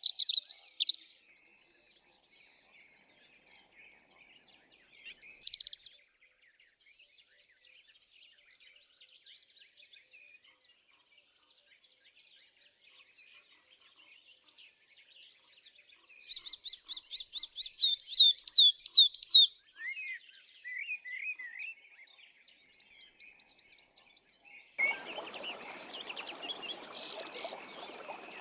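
Songbirds singing: a loud burst of song at the start, soft scattered chirps, then runs of fast repeated notes and trills. Near the end a steady rush of flowing water starts under the birdsong.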